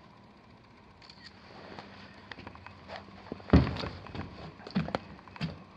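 Scattered knocks and thumps of someone moving about and stepping on wooden framing, the loudest a little past halfway, over a faint steady hiss.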